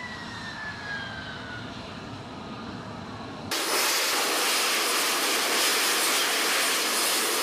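F-35B jet engine running on a runway, with a whine that falls steadily in pitch. About three and a half seconds in, it gives way abruptly to the much louder, steady rushing jet noise of an F-35B hovering on its downward thrust.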